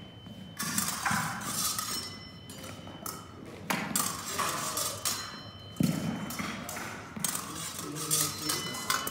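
Épée blades clashing as the fencers exchange actions: a string of sharp metallic clinks, some ringing briefly, mixed with thuds of feet stamping on the floor during lunges.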